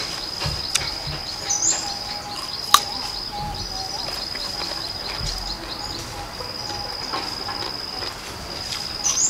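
An insect, cricket- or cicada-like, trilling steadily on one high note, broken by short gaps every second or two. Over it come soft crunches of raw chayote being chewed close by, and a sharp click a little under three seconds in.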